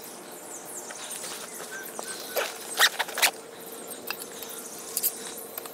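Tree-stand climbing sticks being handled, clacking and rattling against each other with a few sharp knocks, the loudest two a little under 3 s in.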